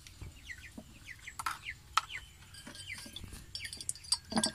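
Chickens clucking, with short falling calls repeated throughout, and a few sharp knocks or clicks, the loudest about two seconds in.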